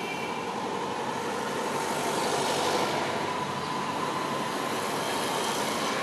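Steady rushing noise of a passing vehicle, growing gradually louder, with a faint steady tone running through it.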